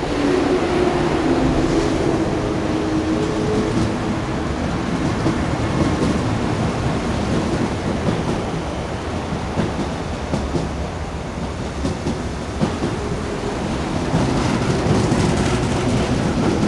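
MTR SP1900 electric multiple unit running through the station without stopping: a loud steady rumble of wheels on rail as it passes, with a pitched hum near the start and again near the end, and scattered clicks of the wheels over the track.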